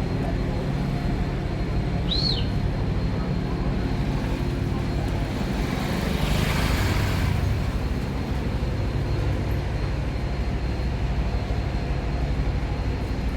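Busy city street ambience dominated by a steady low traffic rumble. A short high squeak rises and falls about two seconds in, and a rush of noise swells and fades about six to seven seconds in.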